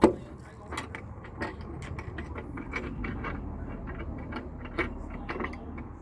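Irregular metallic clicks and knocks of hand tools and plumbing fittings being handled, with one sharp knock at the very start.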